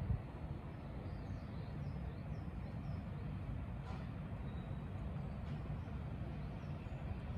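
Outdoor ambience: a steady low rumble with faint, scattered bird chirps above it and a single faint click about four seconds in.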